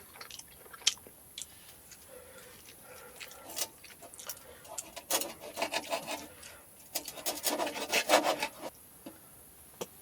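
Eating noises close to the microphone: scattered single clicks, then two runs of crackly clicking and rubbing, about five seconds in and again about seven seconds in.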